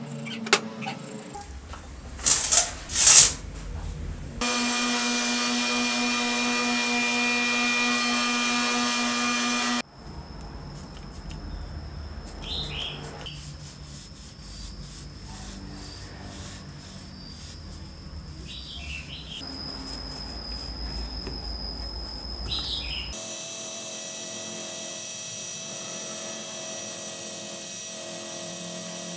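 Bristle scrubbing on a drill armature, then a power tool running steadily for about five seconds. After a quieter stretch of light rubbing with a few faint squeaks, a cordless drill spins a wire wheel brush against a motor's stator housing near the end.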